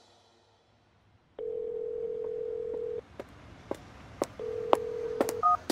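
Telephone ringing tone of an outgoing call: one steady single tone about a second and a half long, a pause with a few faint clicks, then a second tone, followed near the end by a short higher tone.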